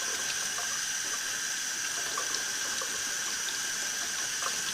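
Kitchen faucet running steadily, its stream splashing over hands into a stainless steel sink, with a few faint small ticks.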